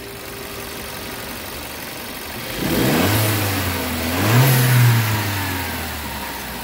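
1.4 TSI turbocharged four-cylinder petrol engine idling, then revved twice by a quick throttle blip and let fall back to idle. The revs run clean with no timing-chain noise, which the mechanic takes to mean the chain problem is fixed.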